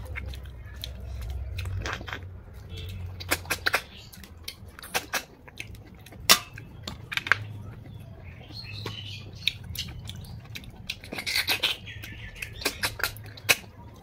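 Cooked snails being eaten by hand: irregular sharp clicks of the shells being picked up and handled, with short squeaky sucking slurps as the meat is sucked from the shells, over a low steady hum.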